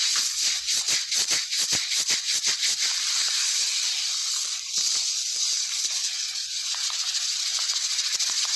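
Close-miked ASMR hair crackling: hands rubbing and twisting a person's hair right at the microphones, a dense crackling rustle. It is busy with quick clicks, several a second, for the first half, then settles into a steadier rustling hiss.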